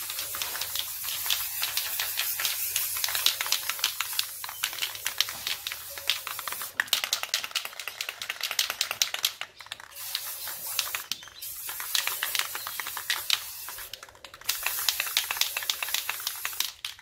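Aerosol spray paint can spraying black paint with a crackly hiss: one long spray of about nine seconds, then shorter sprays with brief pauses between them.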